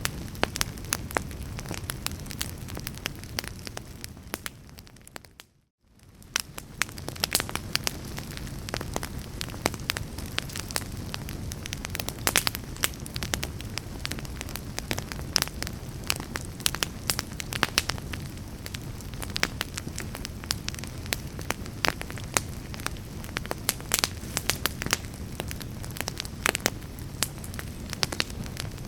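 Fireplace fire crackling, with frequent sharp pops and snaps over a low rush of flame. About five seconds in, the sound fades down to near silence and fades back up within a second or two.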